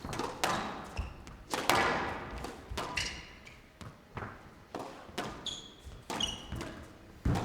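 Squash rally: the ball cracking off rackets and the court walls about once a second, each hit trailing a short echo, with a few brief high squeaks of shoes on the court floor.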